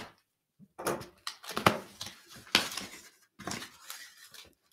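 A box being cut open with a pocket knife: irregular scraping and rustling of packaging, broken by a few sharp clicks.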